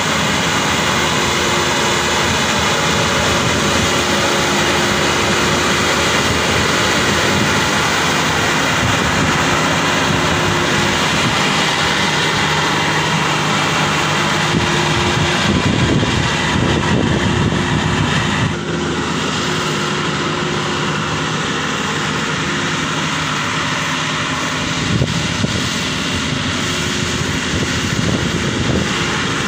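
Maxxi Bimo Xtreme combine harvester running under load while harvesting rice: a steady drone of its engine and threshing machinery, with a brief dip in level about two-thirds of the way through.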